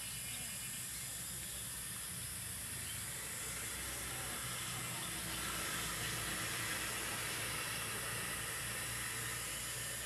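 Steady hissing background noise with no distinct event, a little louder from about five seconds in.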